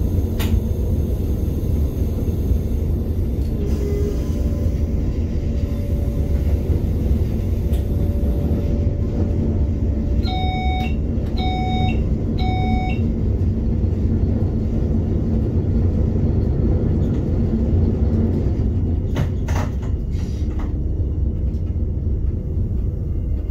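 Cab running noise of an RBDe 560 'Domino' electric multiple unit underway, a steady low rumble of wheels on rail and traction equipment. About ten seconds in, three short electronic beeps come from the cab equipment.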